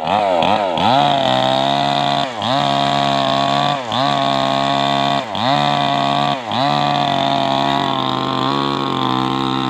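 Stihl chainsaw running at high revs while cutting wood. Its pitch dips sharply and recovers about five times.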